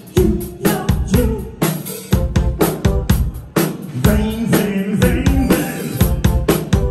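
Live band playing loud, drum-led music: a kit beat of bass drum and snare at about two hits a second, with a bass line and pitched instruments underneath.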